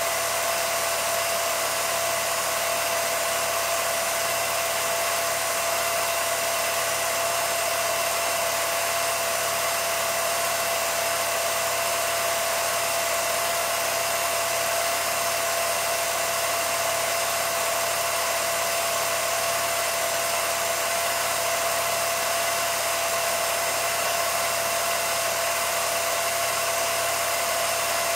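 Steady mechanical whir of an 8mm film projector running, a constant whine with hiss and no changes.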